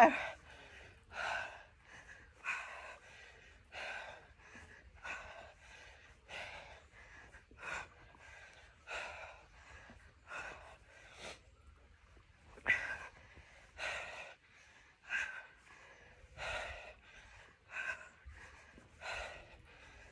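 A woman breathing hard through a set of sit-ups: short, audible breaths in and out, about one a second, keeping a steady rhythm.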